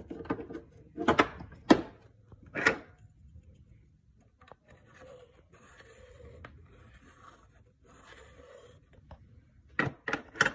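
Sharp metal knocks and clacks of an espresso machine's portafilter being handled: several in the first three seconds, a faint scraping rustle after them, and a quick double knock near the end as it is set down.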